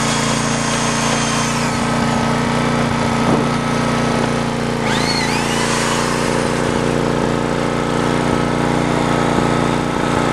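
A small motor or power tool running steadily without a break. A short rising chirp comes through about five seconds in.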